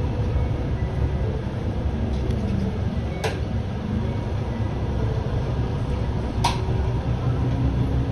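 MAN Lion's City A21 city bus running, heard inside the bus as a steady low rumble. Two short knocks cut through: a faint one about three seconds in and a louder, ringing one about six and a half seconds in.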